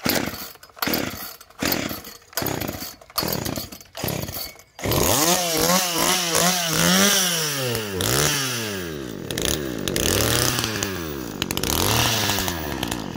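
Poulan Pro two-stroke chainsaw being pull-started: a quick run of about seven short bursts, then the engine catches about five seconds in. It is then revved up and down several times.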